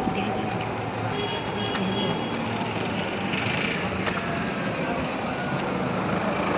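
Steady street traffic noise with vehicle engines running.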